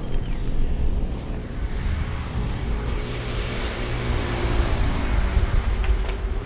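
Wind buffeting the microphone of a camera on a moving bicycle while riding, a steady low rumble with rushing hiss that swells midway.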